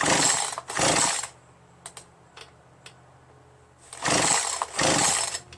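Recoil starter of a Poulan Pro PR4218 chainsaw pulled four times in two quick pairs, a rushing whirr with each pull as the engine turns over with its spark plug out for a spark test.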